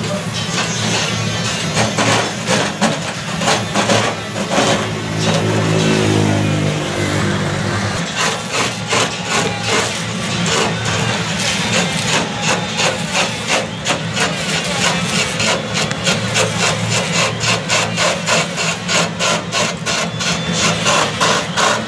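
A simple motor-driven lathe turning a long coconut-wood (glugu) pole, with the cutter scraping the spinning trunk in a rapid, even run of strokes over the steady hum of the machine's motor. The scraping grows sharper and more regular about eight seconds in.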